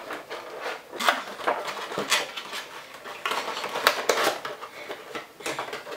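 Funko Pop cardboard box and plastic packaging being handled and opened to take out the vinyl figure: a string of short clicks, taps and rustles.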